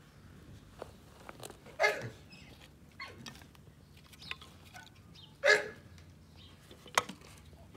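A dog barks twice, two short barks about three and a half seconds apart, with scattered small clicks and one sharp click near the end.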